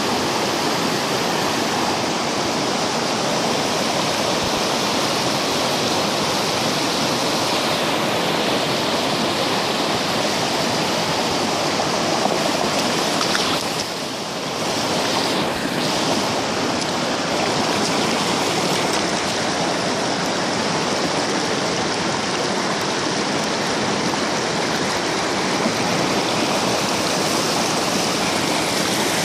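Small rocky creek rushing steadily over stones, with water pouring through a sluice box set in the flow. The sound dips briefly about halfway through.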